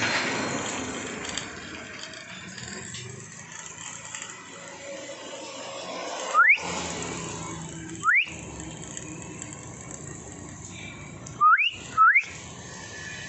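A person whistling four short rising whistles: two about two seconds apart around the middle, then a quick pair near the end, over a steady outdoor background hiss.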